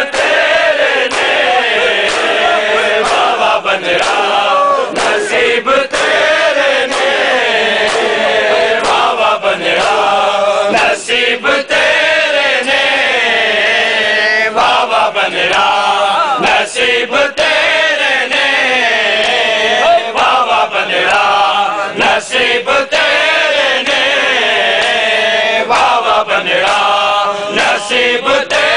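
A large crowd of men chanting a nauha (a Shia mourning chant) in unison, the melody rising and falling in repeated phrases, with occasional sharp slaps of hands striking bare chests in matam.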